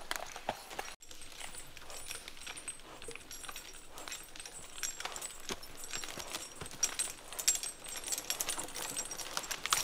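Cold-blood draught horse skidding a log on a chain through the forest: irregular clinks and jingles of the skidding chain and harness, with scattered knocks and cracks of hooves and twigs on the forest floor.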